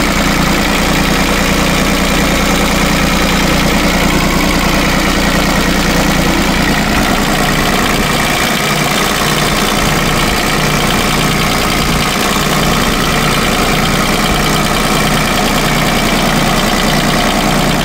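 New Holland TC-series compact tractor's diesel engine idling steadily. It keeps running with the key removed and the battery disconnected: it will not shut off.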